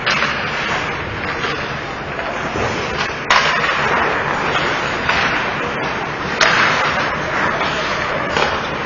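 Ice hockey play: skate blades scraping on the ice under a steady rink hubbub, with sharp clacks of stick and puck, the loudest about a third of the way in and again past halfway.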